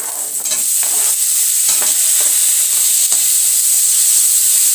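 Chopped tomato tipped into onions frying in hot oil in a kadhai. The sizzle grows louder in the first second. Scrapes and knocks of a metal slotted spoon stir the pan.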